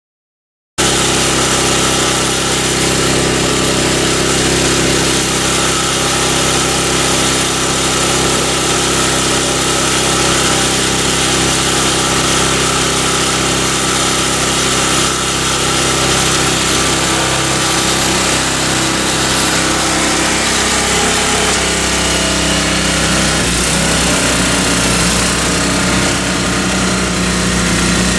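5 HP Tecumseh single-cylinder engine on an MTD 24-inch snowblower running steadily under load while clearing heavy wet snow. It comes in suddenly under a second in, and its pitch shifts a little about two-thirds of the way through.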